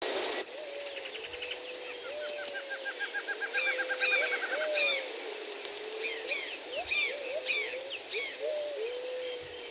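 Jungle bird ambience: several birds calling at once, with a low wavering call, a fast trill of about ten short notes a second for a few seconds, and repeated short falling chirps, over a steady background hiss. A brief burst of noise opens it.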